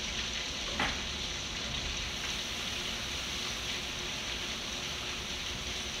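Heavy rain pouring down in a steady hiss, with one brief knock about a second in.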